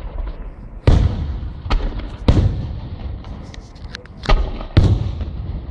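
Fireworks going off: about five loud bangs, each trailing off in a low rumble, with a patter of small crackles in the middle.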